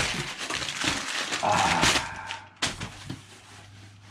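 Crumpled brown packing paper crinkling and rustling as it is pulled out of a cardboard shipping box, loud for about the first two and a half seconds, then dying down to quieter handling of the box.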